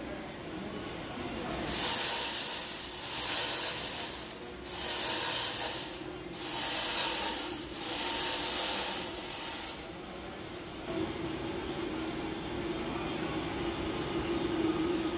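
Manual chain hoist being hand-pulled in about five strokes, the load chain rattling through the block with the ratchet pawl clicking. After that a steady low hum takes over.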